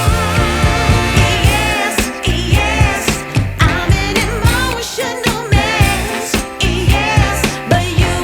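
Background music: a pop/soul-style song with singing over a steady beat.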